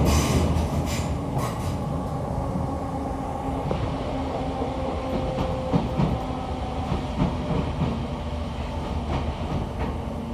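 Merseyrail electric train heard from inside the carriage while running: a steady low rumble with occasional clicks of the wheels, and a higher hiss that fades out about four seconds in.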